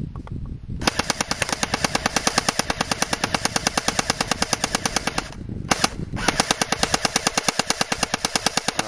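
Airsoft Thompson M1A1 submachine gun firing on full auto as a rapid, even string of sharp clicks. It fires one long burst of about four seconds, then after a short pause with a single click, a second burst of about two and a half seconds.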